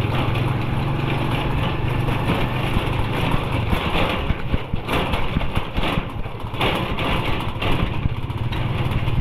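Motor vehicle engine running with rushing road noise; the steady low engine hum weakens a few seconds in.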